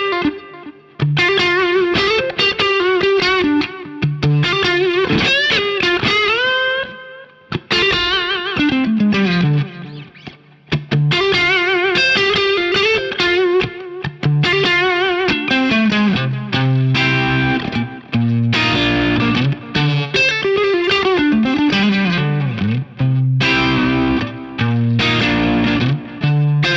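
James Tyler Studio Elite HD electric guitar played through an amp in single-note lead lines: sustained notes with wide vibrato and several descending runs over low notes, with a few short pauses.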